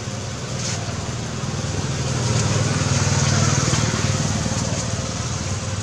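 Street traffic: a motor vehicle's engine runs past, growing louder toward the middle and then fading.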